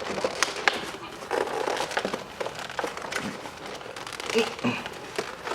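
Plastic and cardboard packaging crinkling and rustling as the contents of a Pokémon trading card collection box are handled, with scattered small clicks and taps throughout.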